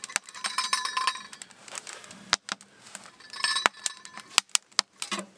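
Metal clinking and scraping as a stuck metal lid on a hot wood stove is worked loose and lifted off: sharp clinks throughout, with two ringing metal-on-metal scrapes about a second in and again near three and a half seconds.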